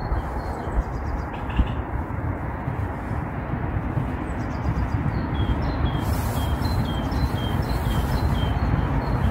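Outdoor rumble of wind on the microphone, with small birds calling short high notes a few times a second, busier from about five seconds in.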